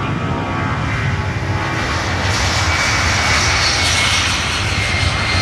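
Jet airliner's engines running at high power, a loud steady rush of noise with a thin whine that comes through more clearly about two seconds in as the sound grows brighter.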